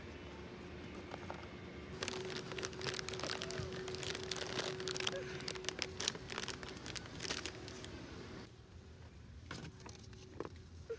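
A plastic snack pouch crinkling as it is handled, over a steady low hum; the crinkling stops about eight seconds in, leaving a few light knocks.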